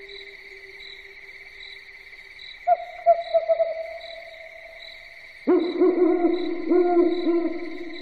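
Owls hooting in long, drawn-out low calls. One hoot fades out, a higher one comes in about two and a half seconds in, and a louder, fuller hoot with several pitches starts about five and a half seconds in. All of it runs over a steady high-pitched background trill with a faint regular pulse.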